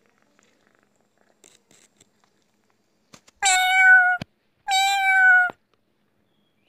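Domestic cat meowing loudly twice, two meows of nearly a second each about a second apart, each dropping slightly in pitch toward its end.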